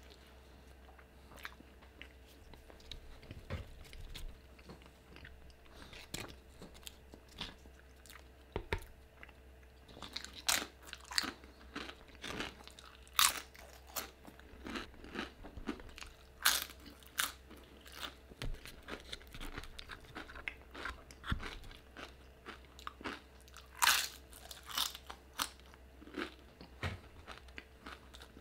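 A person chewing a soft bean and cheese burrito, quiet and wet, then from about ten seconds in biting and chewing tortilla chips with sharp, loud crunches at irregular intervals.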